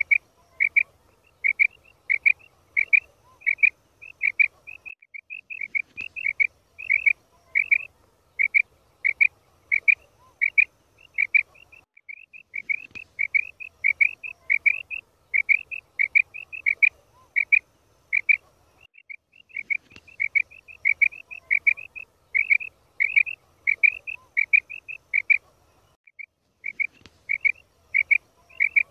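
Female quail calling: short, quick call notes repeated in rapid runs. It is a recorded call played on a loop, with a pause of about a second roughly every seven seconds.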